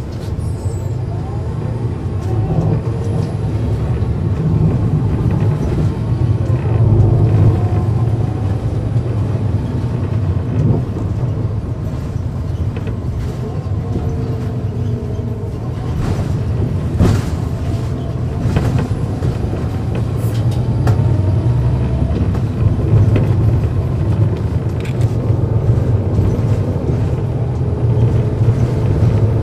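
NABI 40-SFW transit bus under way: its Cummins ISL9 inline-six diesel and ZF six-speed automatic give a deep, steady rumble, with a whine that rises and falls several times as the bus speeds up and slows. A few sharp knocks or rattles sound along the way, the clearest about halfway through.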